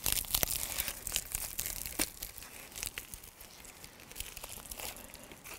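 The charred, brittle outer leaves of an ember-roasted red cabbage crackling and crunching as gloved hands break them off, with scattered sharp snaps. It is busiest in the first couple of seconds and quieter toward the end.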